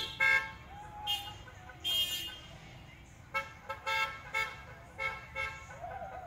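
Car horns honking from passing cars: a few longer toots in the first two seconds, then a quick run of short beeps, about three a second, from around three to five and a half seconds in.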